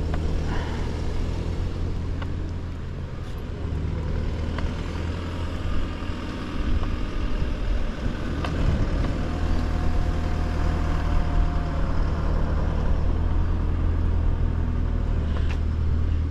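A motor vehicle engine running steadily while moving slowly, a low hum throughout.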